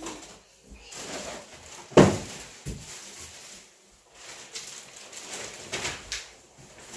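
Hands rummaging through a cardboard box of packages, with rustling of paper and wrapping and one sharp thump about two seconds in.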